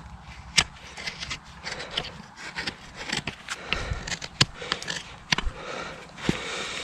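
Farrier's tools scraping and clicking against a horse's hoof wall as it is trimmed, with irregular sharp clicks over a scraping noise.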